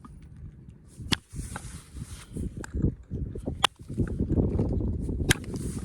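Weather-damaged stone being pressure-flaked with a copper-tipped Ishi stick: three sharp clicks as flakes pop off, over low rustling from the hands.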